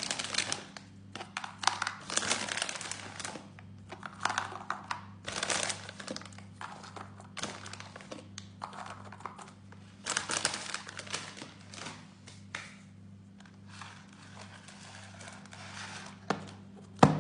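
Crinkling and rustling of a snack packet being opened and handled as small crackers are put into a plastic lunch box, in irregular bursts over a steady low hum. Near the end the lunch box's plastic lid snaps shut with a sharp click.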